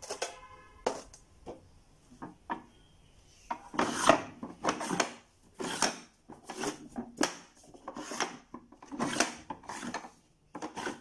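Wooden puzzle tiles being pushed and slid across the tray of a sliding-puzzle frame, a quick series of scraping, rubbing slides one after another.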